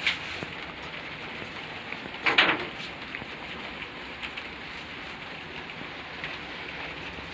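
Steady patter of rain, many small drops ticking. About two seconds in there is one short, louder rustle or scrape.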